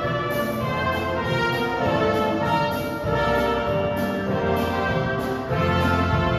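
Orchestra with a prominent brass section (trombones, horns, trumpets) playing full, sustained chords, the harmony moving about once a second.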